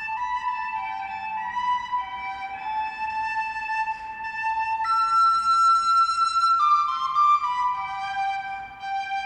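Instrumental music: a slow melody of long held notes, with a flute-like tone, moving step by step between pitches.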